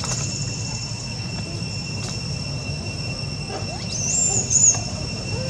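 Steady high-pitched drone of forest insects over a low background rumble, with a brief, loud, high wavering squeal about four seconds in.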